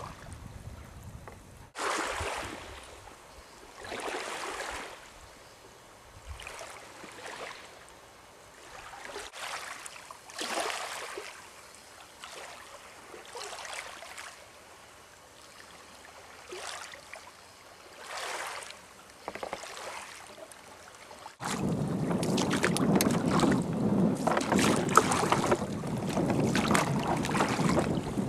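Small waves lapping gently at the shore, one soft wash about every two seconds. About two-thirds of the way through it cuts suddenly to the louder rush and slap of water against the hull of a small boat under way on choppy water, with wind on the microphone.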